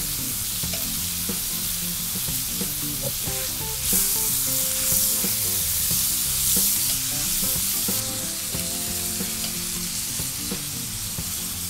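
Tomato, pepper and sausage sauce sizzling in a frying pan on a hot plate, stirred with a spatula. The sizzle swells for a few seconds in the middle.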